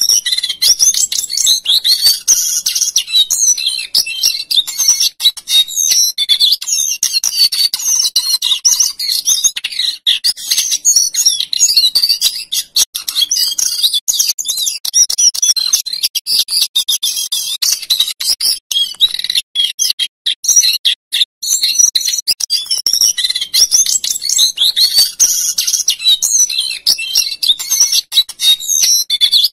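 Male jongkangan coklat (cingcoang cokelat) singing at full voice, a long run of rapid high-pitched warbling rolls and whistled notes. The song breaks off briefly about 13 and 21 seconds in.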